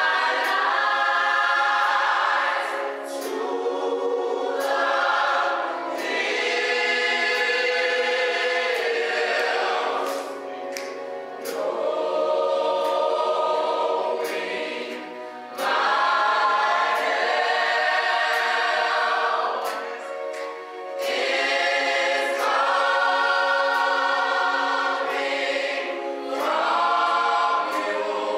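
Large mixed gospel choir singing in full harmony, in held phrases of a few seconds each with short breaks between them, with a few sharp hits over the singing.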